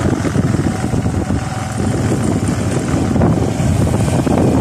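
Steady engine and road noise of a moving vehicle, with wind buffeting the microphone.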